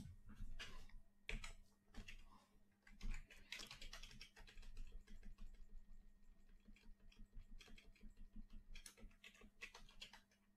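Faint typing on a computer keyboard: an irregular run of quick key clicks, over a low steady hum.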